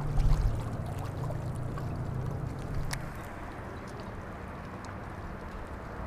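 Wind rumbling on the microphone over the sound of lake water lapping, heaviest for the first three seconds and then easing to a steadier hiss, with a single faint click about three seconds in.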